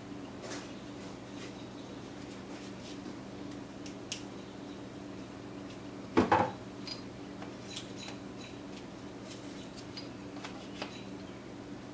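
Light clicks and metal clinks of tools and parts being handled over a steady low hum, with a louder double knock about six seconds in.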